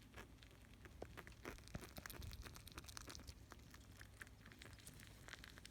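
Faint, scattered rustling and small clicks as small pets stir among their food and bedding at feeding time.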